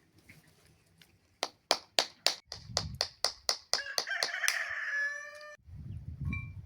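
A quickening run of sharp claps, then a rooster crows, the crow ending abruptly.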